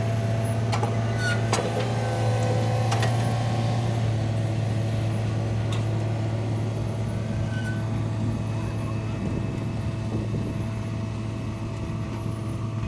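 CSX maintenance-of-way train, gondolas and a crane car, rolling slowly past: a steady low rumble with a few sharp clanks from the cars in the first three seconds, gradually fading as the train moves away.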